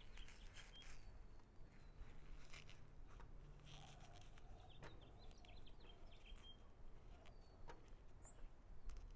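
Faint snaps and rustles of fleshy succulent leaves being pulled off the stem by gloved hands, with small birds chirping faintly in the background.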